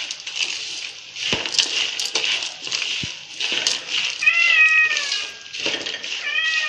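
Wooden spatula stirring and scraping roasted peanuts, dal, dry coconut slices and curry leaves around an aluminium kadhai, a dry rattling rustle with many small clicks. A cat meows twice in the second half: the first call is loud, about a second long and falling slightly, and the second is short and rising near the end.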